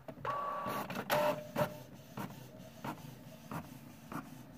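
Canon MP620 inkjet printer starting to print a nozzle check test page. Its motors whine with steady tones for the first second and a half, then give a run of short clicks about twice a second as the printing goes on.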